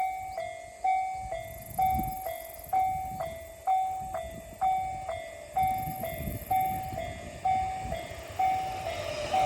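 Japanese level-crossing warning bell ringing steadily, two alternating pitches at about two strikes a second. The low rumble of an approaching train grows underneath, and the train's noise swells up near the end.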